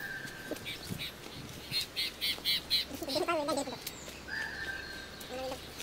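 Birds calling: a held whistled note near the start and again near the end, with a quick run of chirps, about five a second, in between.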